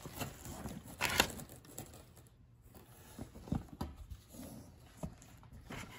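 Handling noise from a tote bag and the zip pouch inside it being touched and shifted: a short loud rustling scrape about a second in, then a few soft knocks and faint rustles.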